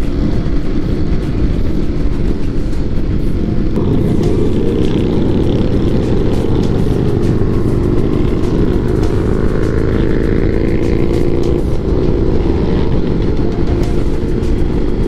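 Motorcycles running at freeway speed in a large pack: the rider's own engine and wind rush mixed with the engines of the surrounding bikes, steady and loud, with engine notes rising in pitch around the middle.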